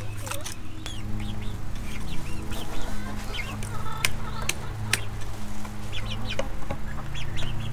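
Chickens clucking, with a few sharp wooden knocks about four to five seconds in as a board is set into a slotted wooden frame.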